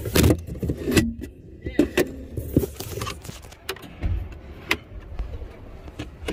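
Irregular clicks and knocks from the plastic interior trim and storage compartment of a Ram pickup being handled.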